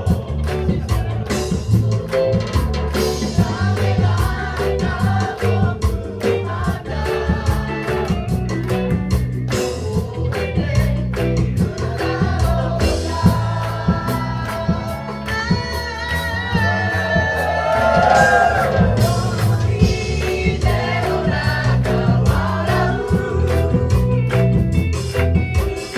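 Live band playing a song with drums and bass on a steady beat, with a group of voices singing along together.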